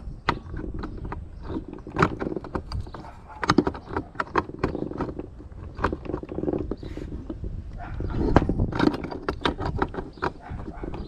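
Steel pipe wrench clinking and knocking against a furnace gas valve's pipe fitting and the plastic work table as it is set on the pipe, in a string of sharp irregular clicks over a low rumble.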